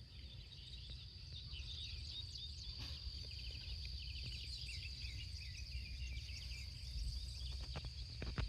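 Outdoor morning ambience: several small birds chirping and singing over a steady high-pitched insect drone and a low rumble, with a few faint clicks near the end.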